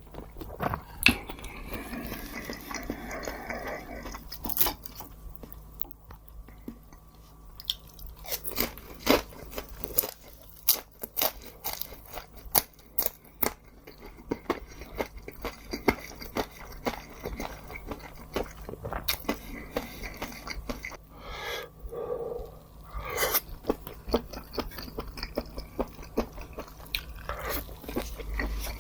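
Close-miked eating sounds: a person chewing and biting into crunchy fried food, with many sharp crunches throughout.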